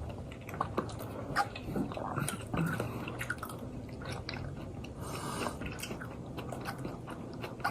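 People chewing mouthfuls of pad see ew noodles, with scattered small clicks and wet smacks.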